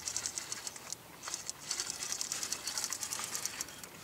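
Spinning reel clicking rapidly in two runs, with a short pause about a second in, as a large pike is played on the line.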